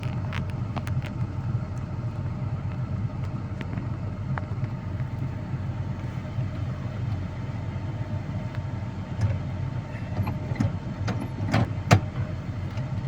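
A vehicle engine running steadily at a low, even hum, with scattered light clicks and one sharp knock near the end.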